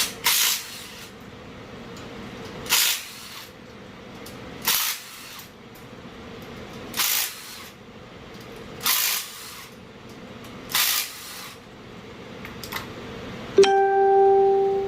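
Power drill running in six short bursts about two seconds apart, backing the bolts out of a water pump. Near the end there is a steady pitched whine for about a second.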